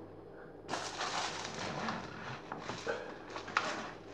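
Rustling and crinkling of wrapping being handled, starting just under a second in and going on irregularly for about three seconds, with a few small clicks.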